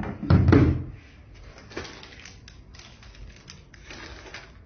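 Plastic-cased AC PoE power unit and its coiled power cable set down on a wooden tabletop with two heavy thuds, followed by light handling clicks and rustles.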